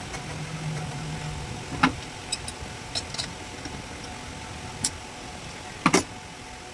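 Steady background hum with a scattering of sharp clicks and knocks, the loudest a quick double knock near the end.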